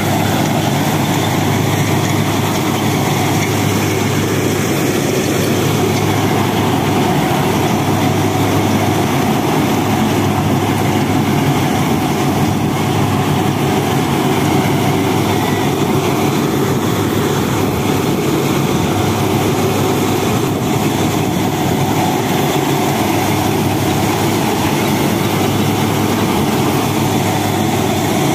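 Turbocharged Mahindra Arjun Novo 605 tractor's diesel engine running steadily under load while driving a Vishwakarma-741 straw reaper through its PTO, the reaper's drum and blower adding a dense, even whir over the engine's low drone.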